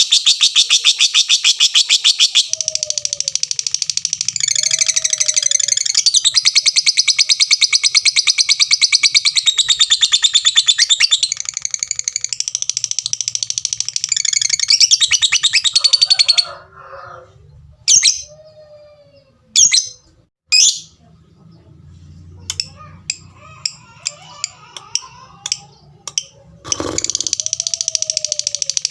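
Lovebird giving a rapid run of 'tik tik tik' ticking calls that runs into a long, continuous high chattering song, the prized 'ngekek panjang', lasting about fourteen seconds before it stops. A few short sharp chirps follow, and the ticking and chatter start again near the end.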